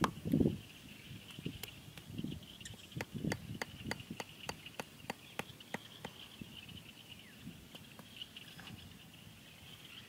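A large knife blade chopping and shaving a small wooden stick: sharp taps and clicks of blade on wood, a few a second, with a few duller knocks in the first few seconds. A steady high-pitched hum runs behind.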